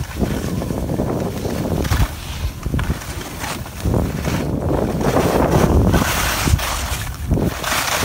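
Wind rushing over a phone's microphone while sliding downhill on a ski slope, with the hiss and scrape of edges on hard-packed snow. The noise swells and dips unevenly.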